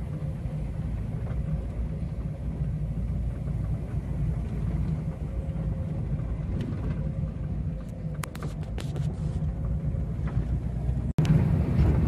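Steady low rumble of a moving road vehicle, engine and road noise, with a few light clicks about two-thirds of the way through and a split-second dropout near the end.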